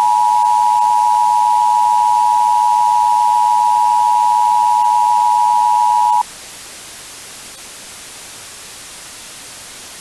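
Emergency Alert System attention signal: two steady tones sounding together, cutting off suddenly about six seconds in, followed by a steady hiss of static.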